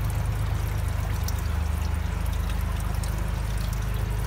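A thin stream of fluid draining from the underside of a car and splashing into a plastic tub, with a steady low rumble underneath.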